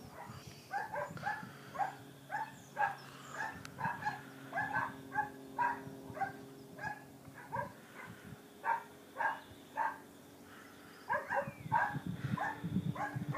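A dog barking over and over, short barks coming about two to three a second with a brief pause near the end.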